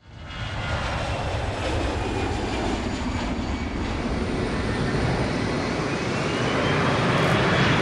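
Business-jet turbofan engines of an Embraer Praetor 600 running: a steady rumble and hiss that fades in at the start and grows louder near the end, with a faint rising whine in the last couple of seconds.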